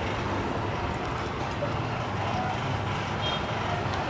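Steady street traffic noise, with a faint low engine hum underneath.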